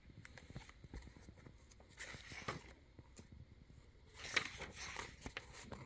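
Soft rustling twice, with small clicks in between, as the pages of a picture book are handled and turned.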